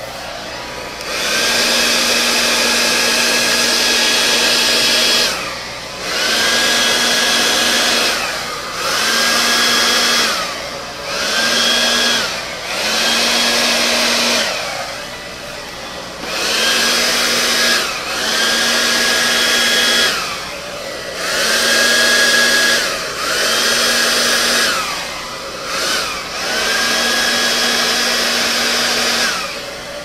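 Handheld hair dryer with a small nozzle attachment, blowing air in about ten bursts of one to four seconds. Its motor whine rises as each burst starts and sinks away as it ends, over a steady rush of air.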